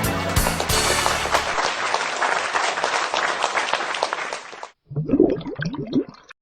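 Background music cuts off about a second and a half in and gives way to a few seconds of studio applause, typical of a prank show's canned outro. The applause stops, and after a short gap comes a brief voice-like sound.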